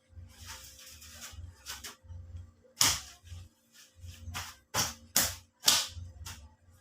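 A run of sharp, irregular clicks and snaps, four of them louder than the rest, over low thumps of something being handled close to the microphone.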